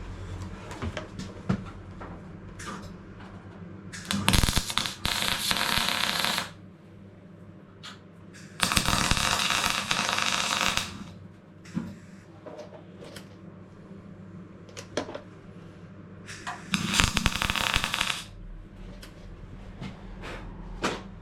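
Welder laying short tack welds on the steel sill panel of a car body: three bursts of crackling, about four, nine and seventeen seconds in, each lasting one and a half to two and a half seconds.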